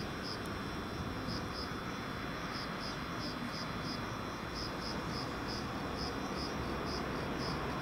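Insect chirping, likely a cricket: short high chirps, often in pairs, repeating about every half second over a steady low rumble.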